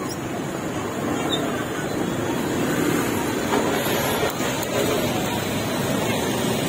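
Busy street-market ambience: a steady wash of traffic and motorbike noise with people's voices in the background.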